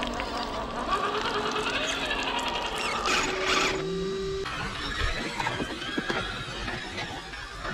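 Scale RC crawler trucks' electric motors and gear drivetrains whining as they crawl through deep mud, with scattered clicks. The whine changes pitch abruptly a couple of times as different trucks take over.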